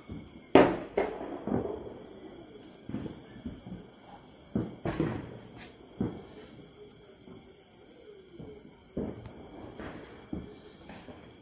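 Crickets chirping steadily, high-pitched, under irregular knocks and plastic rustles from a wooden rolling pin pressing cashew dough out on a plastic sheet; the loudest knock comes about half a second in, with others around the middle and near the end.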